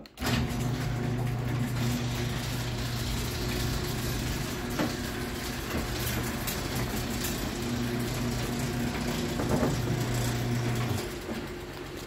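Electric garage door opener running as it raises a homemade wooden sectional garage door: a steady motor hum with a few light clicks from the rollers and panels. It stops about eleven seconds in, when the door is fully open.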